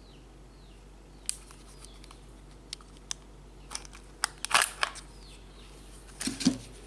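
Scattered sharp plastic clicks and taps from handling a handheld two-way radio, with a quick run of clicks about four and a half seconds in and another pair near the end.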